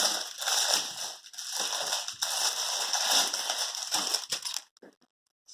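Crinkly plastic packaging of a fidget toy being torn and pulled open, a dense crackling with sharp crinkles that stops abruptly near the end.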